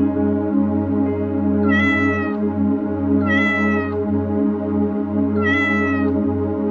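Domestic cat meowing three times, each meow about half a second long and rising then falling in pitch, over steady ambient background music.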